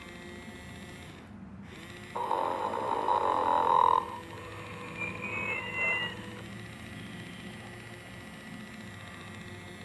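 Sing and Snore Ernie toy's recorded snore played through its small speaker: one long raspy snore about two seconds in, then a short whistling breath out that rises and splits in pitch. Under it runs a faint steady hum.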